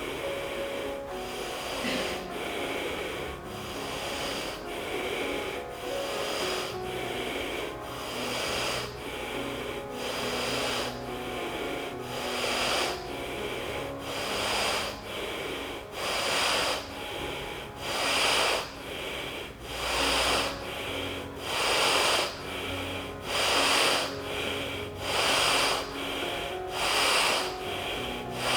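Forceful, rhythmic nasal breathing of Surya Bhedi pranayama, one nostril held closed, about one breath stroke a second, the strokes growing louder and more even in the second half. Soft background music runs underneath.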